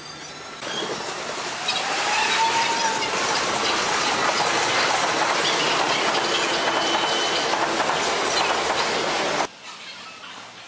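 Electric train passing close by, a loud steady rush of wheels running over rails and points with a clatter, and a couple of brief high wheel squeals. The sound cuts off suddenly near the end.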